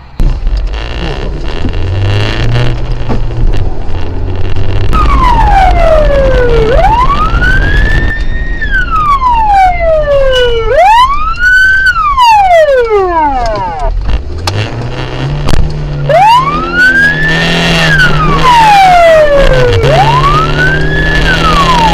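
Police car siren wailing in slow sweeps, each rising and falling over a couple of seconds, starting about five seconds in. Under it a car engine runs hard with road noise, its pitch stepping up and down.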